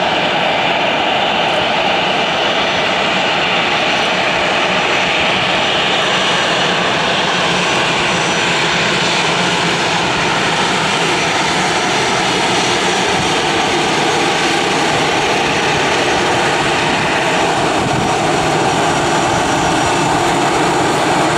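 Twin-engine Airbus A320-family jet airliner taxiing, its turbofan engines giving a loud, steady whine and rush with no spool-up.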